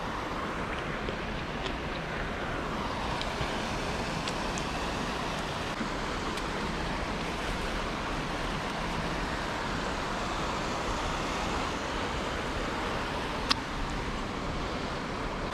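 Steady rushing outdoor background noise, with one sharp click near the end.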